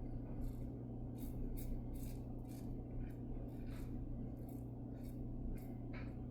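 Short scraping strokes of a safety razor across lathered stubble, about two a second, over a steady low hum.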